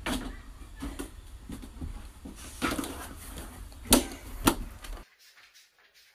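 Hollow plastic knocks and scrapes from a large plastic trash can stuck over a dog's head as the dog bumps around in it, several knocks with the two loudest about half a second apart near the end. The sound stops abruptly about five seconds in.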